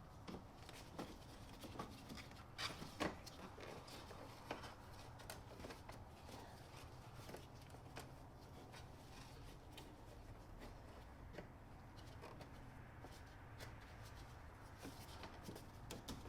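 Faint, scattered clicks, taps and rustles of hands working on the car's headlamp assembly, fitting parts back around the newly installed bulb.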